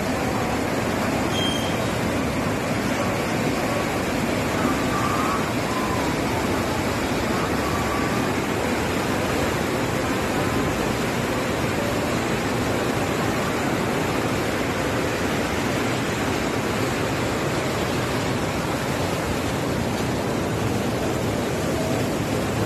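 Koshi River floodwater rushing through the barrage: a loud, steady, unbroken rush of water with no change in level.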